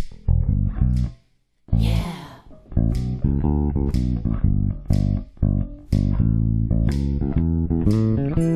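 Electric bass guitar played on its own in a rhythmic line of short, bright plucked notes. There is a brief break just over a second in, and a noisy sweep across the strings right after it.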